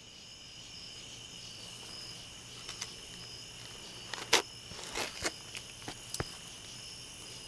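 Night insects, crickets, singing steadily: a continuous high trill with a pulsing chirp above it. A few sharp clicks and knocks come in the second half, the loudest a little past halfway.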